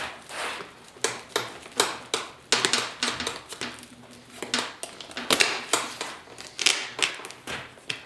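Irregular light metal taps and clicks, one or two a second, from hand work on a motorcycle seat's metal pan and trim clips.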